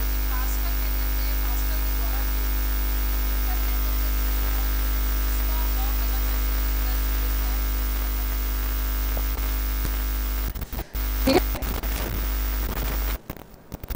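Loud, steady electrical mains hum with static on the lecture microphone's line, the sign of a fault in the audio chain. About ten seconds in it breaks up and cuts in and out, with a brief voice sound among the dropouts.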